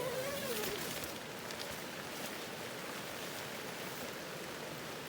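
Steady hiss of falling rain, with a brief rising-and-falling pitched call right at the start.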